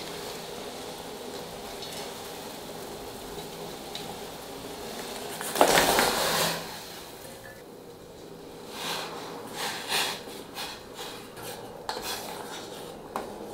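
Water boiling in a stainless steel pot; about six seconds in, jaggery is tipped in from a steel bowl with a loud splash, then a spoon stirs it, knocking and scraping against the sides of the pot.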